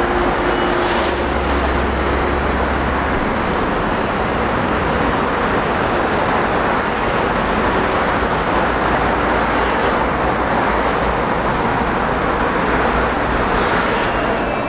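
Seoul Metro Line 2 subway train passing close by on elevated track: a steady, loud running noise of the wheels on the rails.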